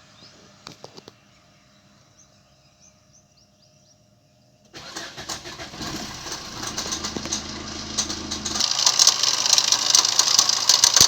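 A few clicks, then about five seconds in the Maruti Swift Dzire diesel engine cranks, catches and runs. As it settles, a loud, fast metallic rattle builds up: noise from a stretched timing chain whose tensioner has run out of travel.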